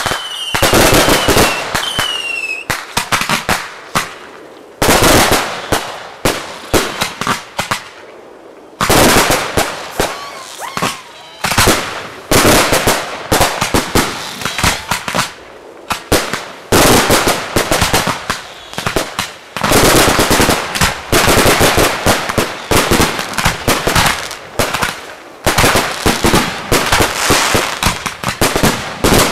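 Professional fireworks display at close range: large aerial shells launching and bursting in quick succession, with a dense crackle between heavy bangs that come every few seconds. A few short whistles falling in pitch sound in the first couple of seconds.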